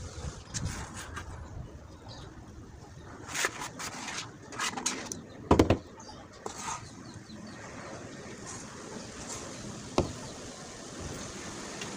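Handling noises from body-filler work at a tabletop: a few short scrapes and knocks as tools are picked up and put down, the loudest a thump about halfway through, and one sharp tap near the end, over steady background noise.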